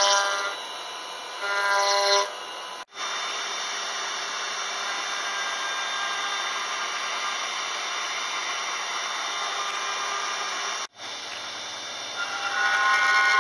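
Five-axis CNC router milling katsura wood with a long spindle-mounted cutter: steady cutting noise under a thin high whine, with louder pitched squeals from the cut in the first two seconds and again building near the end. The sound drops out abruptly twice, about three and eleven seconds in.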